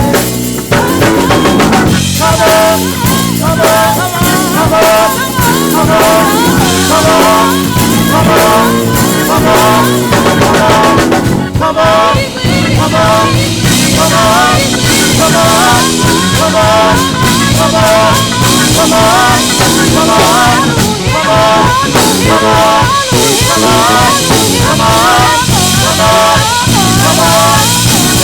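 Live gospel band music led by a drum kit playing a busy, steady groove under melodic band parts.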